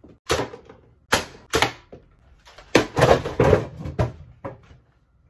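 A run of sharp plastic and cardboard knocks from a toy foam-dart blaster and empty tissue boxes being hit, with a louder clatter about three seconds in as the boxes are knocked off their stacked tower.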